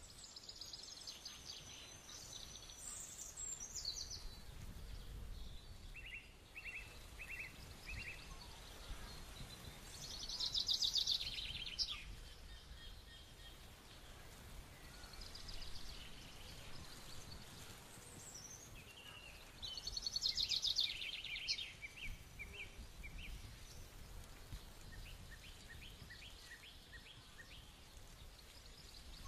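Wild birds singing in bouts of rapid trilling, loudest about 10 and 20 seconds in, with a run of four short, evenly spaced notes around 6 to 8 seconds in, over a faint low rumble.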